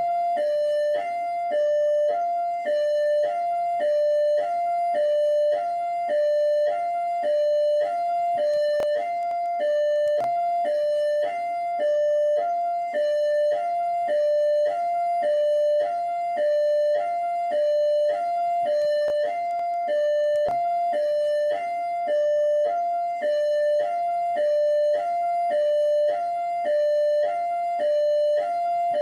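PMERJ police car siren in hi-lo mode: two tones alternating high and low, one full high-low cycle about every 1.3 seconds.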